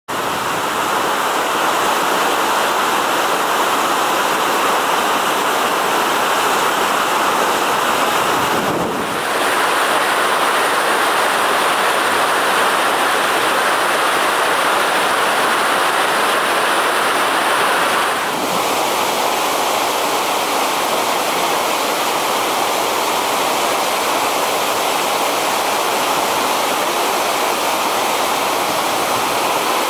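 Steady rushing of ice and meltwater pouring down a cliff below a hanging glacier, as icefalls calve and avalanche. The sound changes abruptly about 9 and 18 seconds in.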